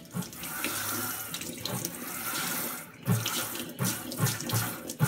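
Running water pouring and splashing into a plastic bucket that already holds water, with uneven sloshing thuds.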